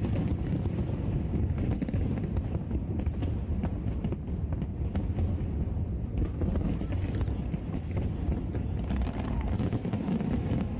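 Fireworks going off: a continuous low rumble of bursts with many sharp crackles and pops scattered through it, over the murmur of a crowd.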